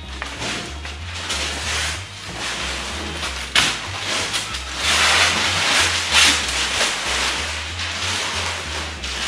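Masking paper and tape being ripped off a car body and crumpled by hand: irregular crackling rustles, with a sharp rip about three and a half seconds in and the loudest crumpling a little later. Music with a stepping bass line plays underneath.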